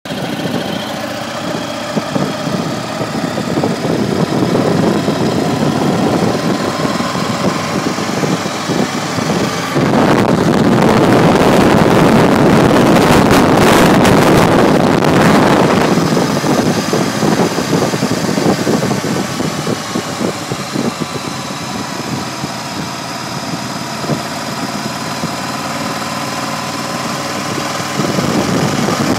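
Cruiser motorcycle engine running on the move, with wind rushing past. For about six seconds, starting around ten seconds in, wind buffeting the microphone grows much louder and covers the engine.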